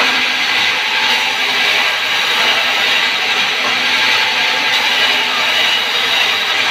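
Sawmill band saw ripping a squared timber that is fed through the vertical blade by hand: a loud, steady, high-pitched rushing noise of the blade cutting wood, without pauses.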